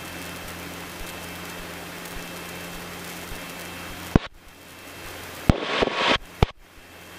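Cessna's engine at full takeoff power, heard through the headset intercom as a steady hiss over a low hum. About four seconds in, a click cuts the sound. It is followed by sharper clicks and a short burst of static, typical of a radio or intercom being keyed.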